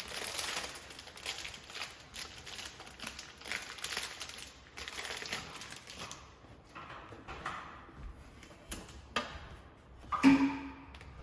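Packaging rustling and crinkling for about six seconds as a new Keurig coffee maker and its parts are unboxed, then a few scattered clicks of parts being handled, and near the end one loud knock with a short ringing tone.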